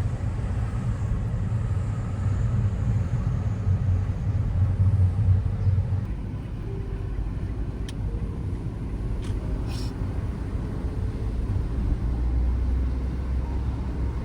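Low, steady rumbling noise, with a few faint clicks around eight and ten seconds in.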